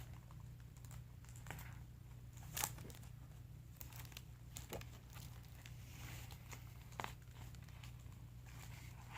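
Adhesive tape being torn into strips and pressed onto cardboard: faint crinkling with a few sharp snaps, the loudest about two and a half seconds in, over a low steady hum.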